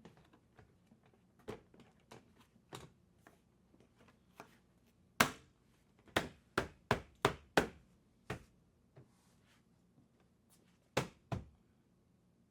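Irregular sharp knocks and taps of hard objects: one loud knock about five seconds in, then a quick run of five over the next two seconds, a lighter one after, and two more close together near the end.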